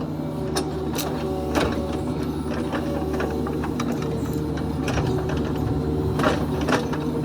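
Kubota KX71-3 mini excavator's diesel engine running steadily, with scattered sharp clanks and knocks from the bucket and thumb working a root ball.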